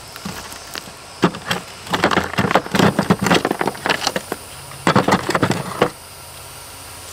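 Cured mortar being chipped and broken out of the ribbed underside of a plastic shower base with a hand tool: bursts of sharp knocks and cracking as chunks break loose, with short pauses, the busiest stretch in the middle.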